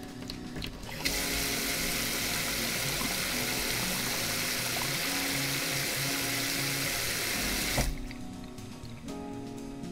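Tap water running hard into a kitchen sink for a drain flow test, turned on about a second in and shut off near the end. The drain is not taking it and water rises in the basin almost at once, the sign of a clogged kitchen drain.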